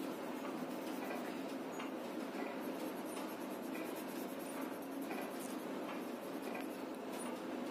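Pencil scratching steadily on paper in quick back-and-forth shading strokes, filling an area in dark.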